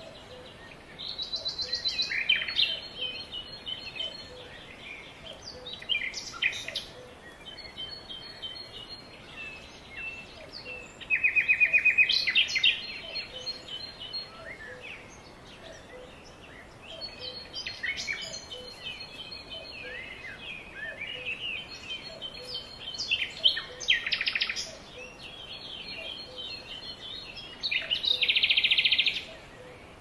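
Several songbirds singing and calling together: overlapping chirps and whistles with a few rapid trills, the loudest about eleven seconds in and again near the end, over a faint steady background hiss.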